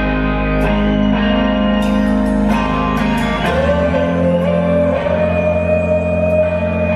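Live rock band: an electric guitar picking a slow riff, one note bent upward about three and a half seconds in, over bass and drums with scattered cymbal hits.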